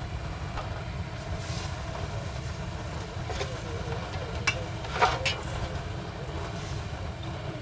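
Perforated metal ladle stirring lumps of jaggery in water in an aluminium pot to dissolve them into syrup, with a few sharp knocks of the ladle against the pot, the loudest about five seconds in, over a steady low rumble.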